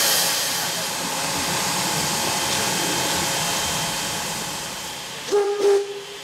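Steam locomotive of the two-foot-gauge Wiscasset, Waterville & Farmington, all original equipment, hissing steam steadily, with a brief single-pitched whistle toot about five seconds in.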